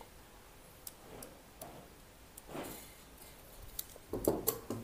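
Faint handling of blouse fabric and tailor's chalk on a cloth-covered table: a few light ticks and a soft brushing stroke, with a brief louder bump near the end.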